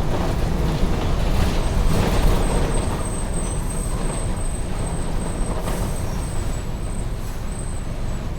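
Mercedes-Benz OF-1722M city bus running, with a dense, steady low rumble of engine and road noise. A thin, steady high-pitched whistle rides over it from about two seconds in, and there are a few brief hisses.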